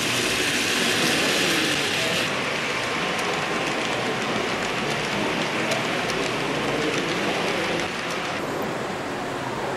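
Model trains running on a layout, with the wagons' wheels rolling on the rails and light clicks, over a steady background of hall noise. The sound changes abruptly twice, at cuts between scenes.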